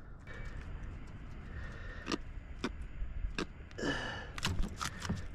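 Long-nose pliers clicking against a fishing hook as it is worked out of the corner of a giant trevally's mouth: a handful of sharp separate clicks from about two seconds in, coming closer together near the end, with a short rustle just before, over a low steady rumble.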